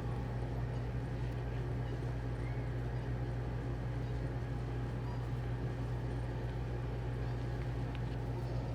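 A steady low hum, unchanging throughout, like a motor or fan running.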